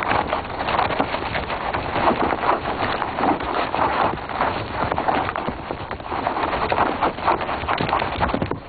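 Young springbok rams sparring: a dense, irregular clatter of hooves scuffling and horns knocking together.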